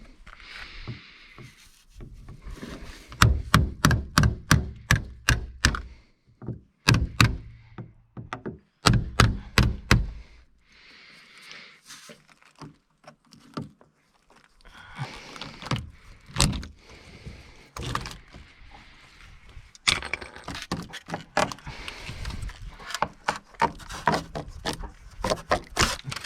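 Runs of quick, sharp knocks, about three or four a second, in several bursts, with softer scraping noise between them.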